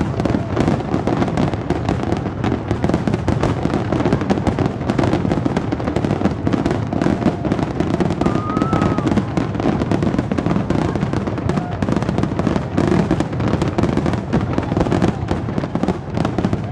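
A dense, unbroken barrage of aerial fireworks: many shells bursting and crackling every second, over a continuous low rumble of booms.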